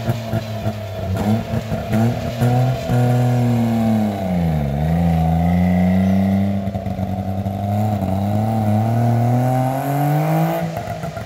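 DKW-Vemag Belcar's three-cylinder two-stroke engine running through a bare exhaust pipe with no muffler as the car pulls away, uneven for the first few seconds. The revs drop sharply about four and a half seconds in and climb again, then fall away near the end.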